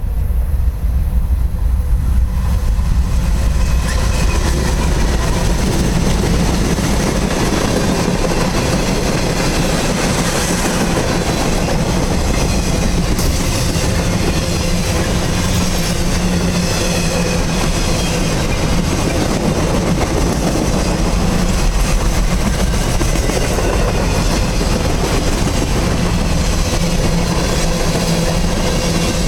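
A long CSX military container freight train rolling past: a steady, loud rumble of steel wheels on the rails with some clickety-clack over the rail joints.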